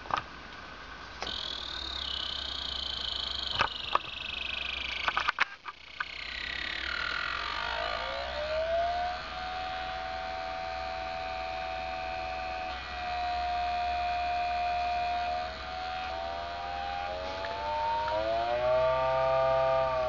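A 12-winding Bedini pulse motor running with a siren-like whine. A high tone falls steeply over a few seconds and settles into a steady lower tone, which steps and wavers in pitch near the end as the selector switch is turned. A few sharp clicks sound in the first several seconds.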